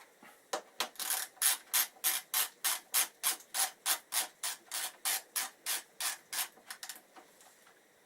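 Short scrubbing strokes, about three a second, cleaning old grease and dirt off a brake caliper mounting bolt; they stop about seven seconds in.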